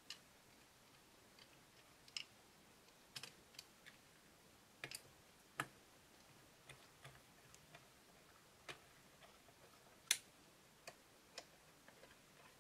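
Faint, irregular clicks and taps of a screwdriver and plastic front-panel parts being handled as a spectrum analyser's front panel is fitted back together. One click about ten seconds in is louder than the rest.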